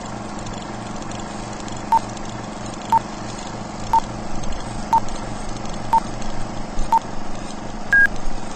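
Old film-leader countdown sound effect: a short beep once a second, six times, then a single higher-pitched beep, over a steady hiss and hum.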